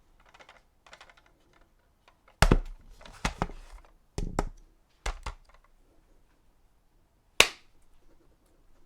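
Kitchen knife chopping down onto a cutting board in a handful of separate, irregularly spaced sharp knocks, some of them doubled.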